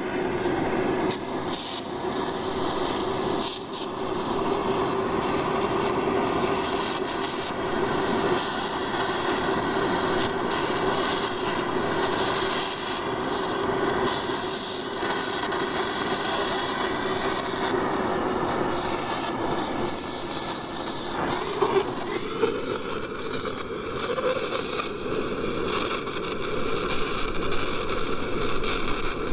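Oxy-acetylene torch flame burning with a steady hiss over a low hum. About three-quarters of the way through the sound changes abruptly and the hum drops away, with a few light knocks on metal scattered through.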